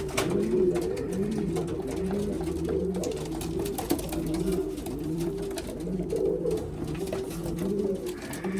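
Racing pigeons cooing in the loft: several birds overlap in a continuous low, rolling coo, with a few faint clicks.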